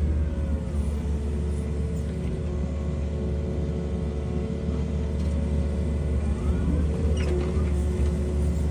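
A motor-vehicle or machine engine running steadily with a constant low hum.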